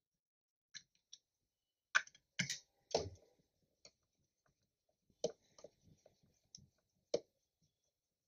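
Light, irregular clicks and taps of fingers working small nuts and the plastic pump cover inside an opened milk analyzer's plastic case, about a dozen in all, the loudest about two to three seconds in.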